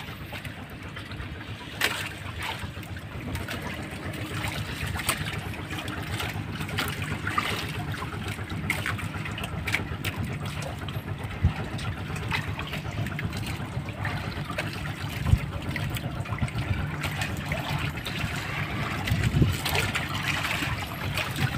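Water sloshing and trickling with scattered small clicks and knocks over a steady low hum; a sharper knock stands out about fifteen seconds in.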